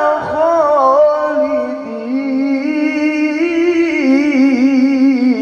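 A man reciting the Qur'an in the melodic tilawah style into a microphone, drawing out one long ornamented phrase on a single breath. His pitch ripples in quick wavers, sinks partway through and climbs again before he breaks off at the very end. His voice is hoarse and forced.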